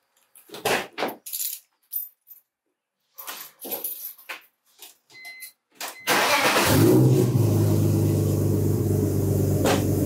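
Car door opened, keys jangling and scattered clicks as someone climbs in. About six seconds in, the BMW E46 Touring's straight-six cranks and starts, settling at once into a steady idle, with a single sharp click near the end.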